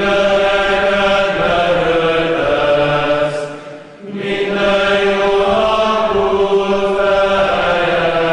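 A congregation of many voices singing a Byzantine-rite liturgical chant, unaccompanied. It comes in long held phrases, with a short breath about four seconds in.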